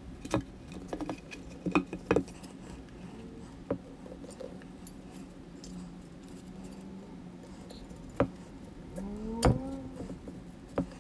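Hands and a screwdriver working on a bookshelf speaker's bass driver as its screws are taken out and the driver is lifted from the baffle: scattered clicks and knocks, with a short rising whine about nine seconds in, then a sharp click.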